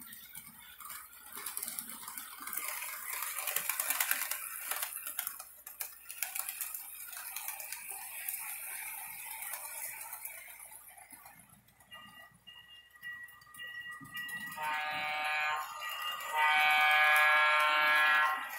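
Model electric train running along the layout's track, wheels and motors giving a clicking, rattling whir. From about twelve seconds in a horn begins to sound, and near the end a model locomotive's electronic horn blows in a loud, steady chord.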